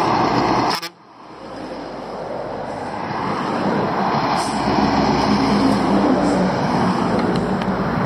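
A lorry drives past on the road: engine and tyre noise as it approaches and goes by. The noise cuts out sharply about a second in, then builds and stays loud to a peak in the second half.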